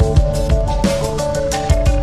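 Background music with a steady drum beat and a melody line.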